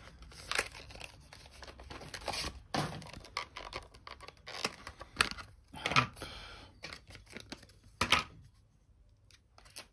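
Packaging being handled and torn open by hand: crinkling and tearing in irregular bursts, dying down near the end.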